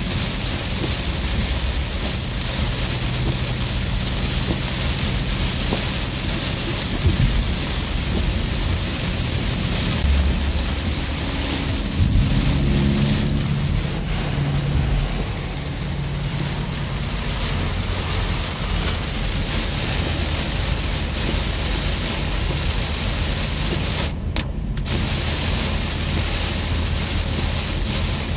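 Heavy rain pelting the roof and windshield of a 2006 Ford Freestar minivan, heard from inside the cabin as it drives through standing water. A low rumble swells about ten seconds in and fades a few seconds later.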